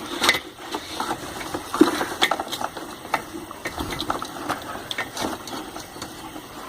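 Irregular small clicks and knocks of hands working a refrigerator start relay onto the compressor's terminal pins.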